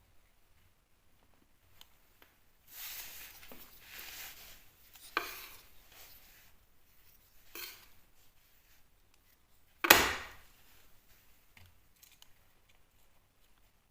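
Scraping and rubbing of a hand tool on plasterboard and filler in spells of a few seconds, with a sharp click midway and a single loud knock about ten seconds in.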